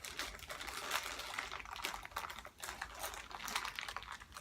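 Thin plastic packaging crinkling and clicking as hands pry open a sealed compartment, with many small irregular crackles.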